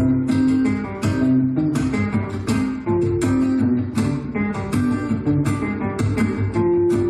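Solo Selmer-Maccaferri-style acoustic guitar playing a tune, with single melody notes over strummed chords struck about twice a second.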